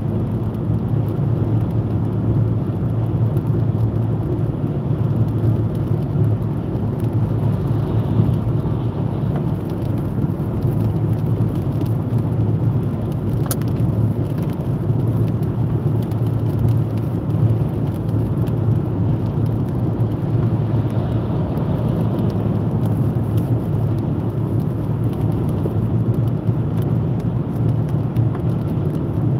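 Inside a car's cabin at motorway speed on a wet road: a steady low rumble of tyre and engine noise, with a single faint click about halfway through.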